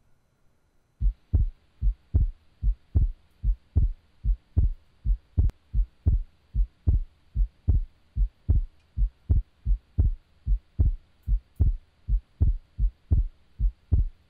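Heartbeat sound effect: a steady run of low, evenly paced thumps, about two and a half a second, starting about a second in.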